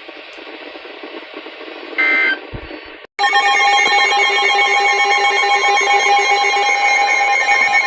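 Weather radio emergency alert tones. A short burst of data-header warble comes about two seconds in and cuts off. About three seconds in, a loud, steady electronic multi-tone alert starts, signalling that a new warning is about to be broadcast.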